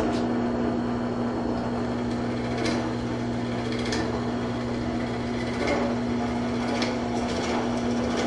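Drill press running steadily, its bit boring into a wooden 2x4 block: an even motor hum with cutting noise and a few faint ticks.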